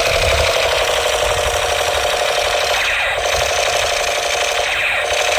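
A steady, fast buzzing rattle, like a small mechanism running continuously, at an even loudness throughout.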